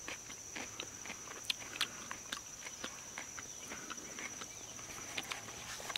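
Close-up chewing of a crunchy, juicy hot pepper: irregular soft crunches and wet mouth clicks, with a steady high-pitched whine behind.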